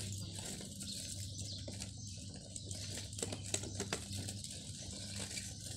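Plastic bags and food containers being handled, with light rustling and a few short clicks a little past the middle, over a low steady hum.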